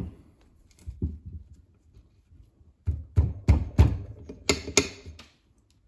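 Heavy steel differential carrier with its ring gear being handled and turned onto its side on a workbench: a thump at the start, then a run of dull knocks with a couple of sharper metallic clinks near the end.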